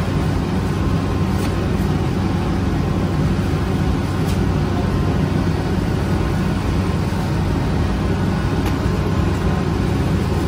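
Rotary flatbread oven running with a steady low rumble.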